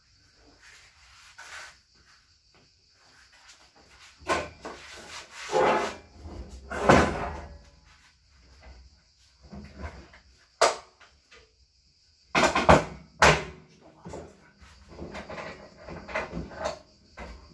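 Objects being handled and set down: scattered knocks and clatters at uneven intervals, with one sharp knock past the middle and two loud knocks close together a little later.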